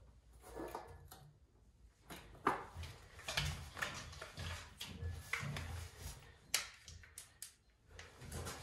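A few faint, scattered clicks and knocks with low handling noise in between.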